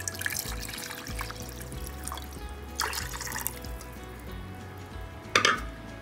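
Milk pouring into a stainless steel saucepan in the first second or so, with a further splash about three seconds in, over background music. A single sharp knock sounds about five and a half seconds in.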